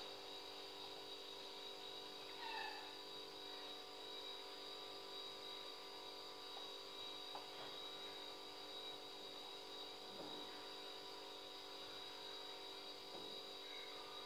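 Faint steady mechanical hum made of several level tones, with a short faint chirp about two and a half seconds in.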